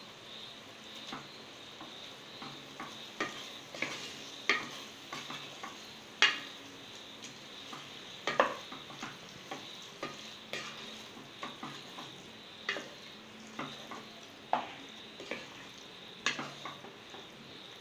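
Wooden spoon stirring raw chicken pieces into masala in a pressure cooker, knocking and scraping against the pot at irregular intervals, over a steady sizzle of frying.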